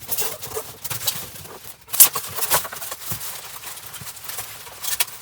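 Irregular knocks, clatter and rustling as exercise-bike parts and their packaging are handled and moved about, with one sharper knock about two seconds in.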